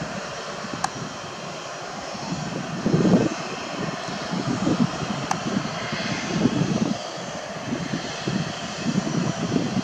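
Boeing 737-800's CFM56-7B turbofan engines running at low taxi thrust, heard from afar as a steady jet hiss over an uneven, swelling low rumble.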